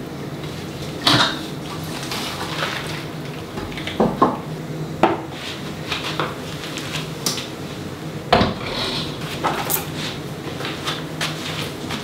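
Terracotta plant pots clinking and knocking as they are lifted off and hung back on a wall rail, in irregular clatters about once a second. A faint steady hum runs underneath.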